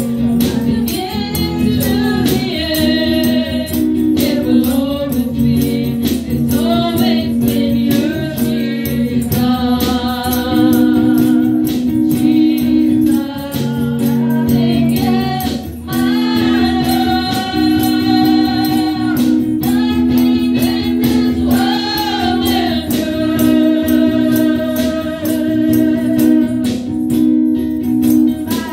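Live gospel worship song over a PA: a woman leads the singing into a microphone, with backing singers, steady held accompaniment chords and a regular percussion beat.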